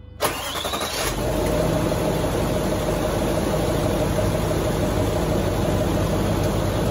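A Range Rover's 3.6 TDV8 diesel V8 is cranked on the starter, with a short rising whine, and catches within about a second. It then settles into a steady idle, run after an oil change to fill the new oil filter.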